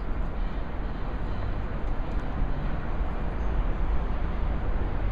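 Steady low rumble and hiss of a light-rail station, with a Docklands Light Railway train standing at the platform.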